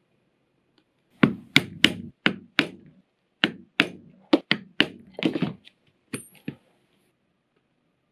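Mallet striking a leather stitching chisel, punching stitch holes through leather: about a dozen sharp strikes over four seconds, some in quick pairs, then a few lighter clicks.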